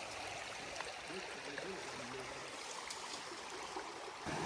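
Creek water running steadily over rocks, an even rushing hiss. A louder low rumble comes in near the end.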